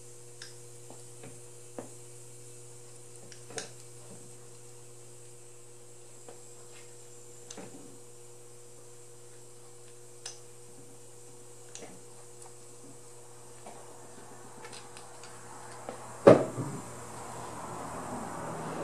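Faint, steady hum in the workshop with scattered light taps of metal parts being handled, then one loud metallic clunk near the end as the differential is set down into the manual transmission case, followed by rubbing.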